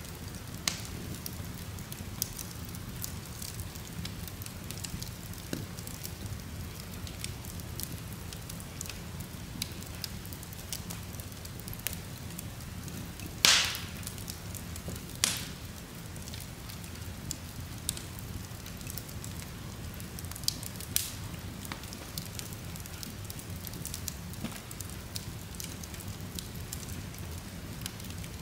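Wood logs burning in an open fireplace: a steady low rumble under scattered crackles and sharp pops. The loudest pop comes about halfway through, with another a couple of seconds later.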